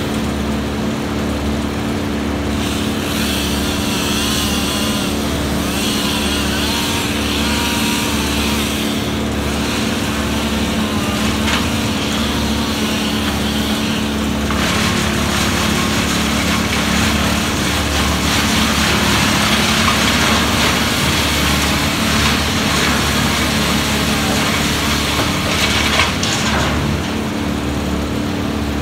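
Wood chipper engine running steadily while sugar maple branches are fed into it. The shredding of wood and leaves adds a dense hiss that swells about halfway through and drops away near the end.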